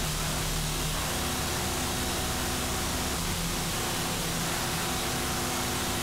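Noise music: a dense, unchanging wall of hiss-like static at constant loudness, with faint low hums coming and going underneath.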